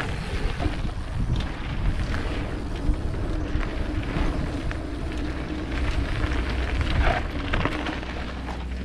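Mountain bike riding over a gravelly dirt track: tyres rolling and crunching on loose stones with scattered small clicks and knocks, under a heavy wind rumble on the microphone.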